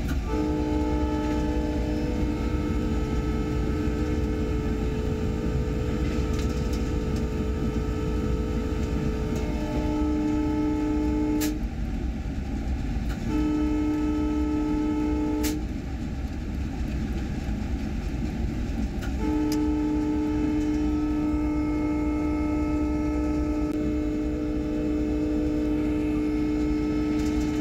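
Train horn sounding three long blasts of several tones at once, the first about eleven seconds, then a short one of about two seconds, then one of about eight seconds, over the steady rumble of a test train running at speed on new track.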